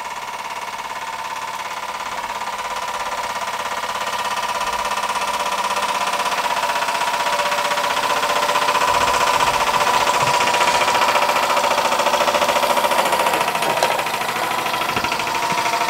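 Scratch-built oscillating-cylinder model steam engine running on steam from its hot brass boiler with the gas burner off, a rapid even chuffing beat over a steady hiss, gradually getting louder.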